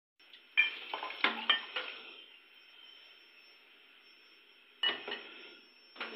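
Steel ladle clinking and knocking against a steel bowl while sharbat is ladled into a jug and glasses: a quick run of sharp clinks about half a second to two seconds in, then another knock near five seconds and more clinks near the end.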